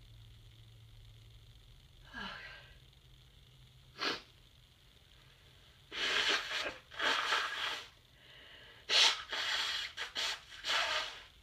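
Woman with a cold sneezing several times in quick succession in the second half.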